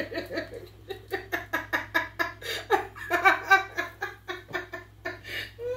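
A woman laughing in a long, quick run of repeated bursts.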